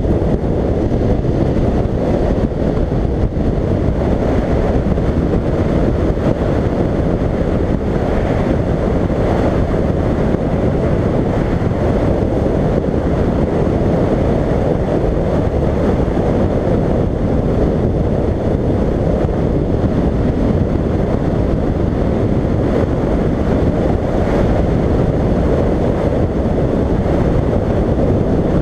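Steady wind rush over a helmet-mounted microphone on a motorcycle at road speed, with the BMW F750GS's engine running beneath it.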